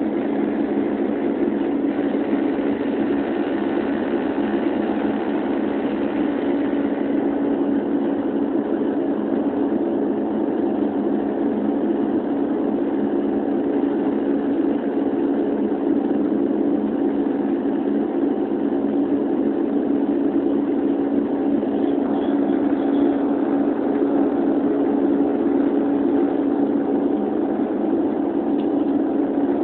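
Steady drone of a de Havilland Canada Dash 8's turboprop engines and propellers heard from inside the passenger cabin: a constant low hum with a strong, even tone.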